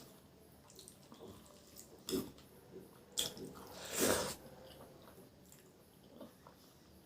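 Mouth sounds of a person eating rice and curry: wet chewing and smacking, with a few louder sharp sounds about two, three and four seconds in, the one near four seconds the loudest.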